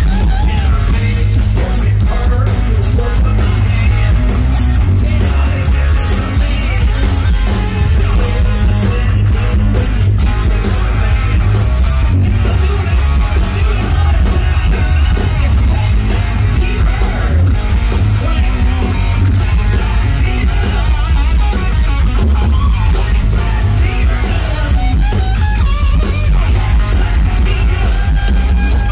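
Live hard rock band playing loud: a hollow-body electric guitar, electric bass and drum kit, with a heavy, booming low end.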